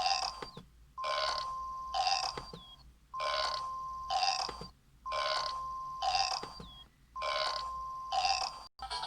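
A recorded burp sound repeating in an identical loop, five times about two seconds apart, each burp preceded by about a second of a steady electronic tone and ending in a short falling squeak. The exact sameness of every repeat marks it as a looped sound effect or a toy's playback, not a live animal.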